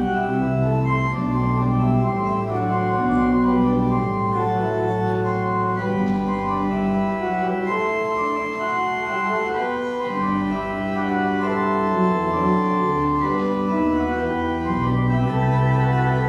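Organ playing slow, held chords that change every second or two over a low bass line.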